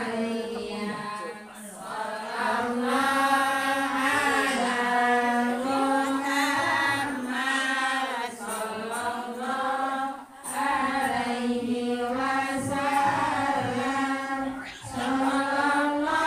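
A group of women chanting Islamic devotional verses (shalawat) in unison, in long drawn-out sung lines with a few brief breaks for breath.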